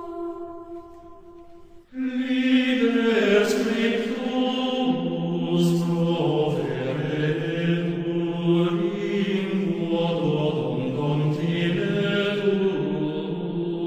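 Slow chant sung by several voices in long held notes. A phrase fades out, and after a brief pause the singing comes back strongly about two seconds in.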